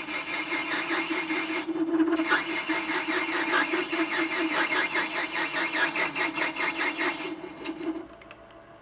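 High-speed-steel tool bit cutting a spinning brass bar on a homemade mini lathe: a steady tone with a fast pulsing rattle over it, the sign of the tool chattering a bit. The cut stops near the end.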